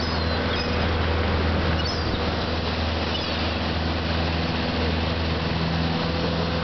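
Boat engine running steadily with a constant hum, over the rush of water churning in the wake. A few faint high gull calls come through in the first half.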